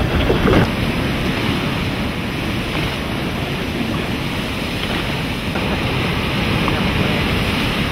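Ocean surf and wind buffeting the microphone: a steady rushing noise with no distinct events.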